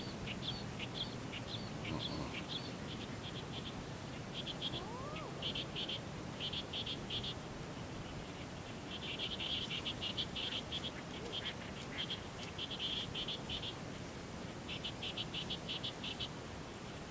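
Frogs calling: bouts of rapid, high-pitched clicking trills that start and stop irregularly, over a steady background hiss.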